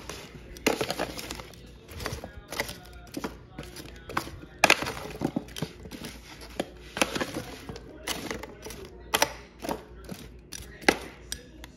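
Metal tongs tossing seasoned potato cubes in a disposable aluminum foil pan: irregular clanks and scrapes of metal on the foil, with the potatoes shuffling against each other.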